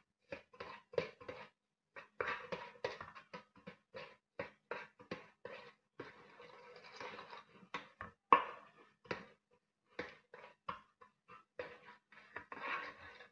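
A silicone pastry brush dabbing and sweeping against the inside of an aluminium tube cake pan as it is greased, making a run of irregular light taps and scrapes on the metal, with one sharper knock partway through.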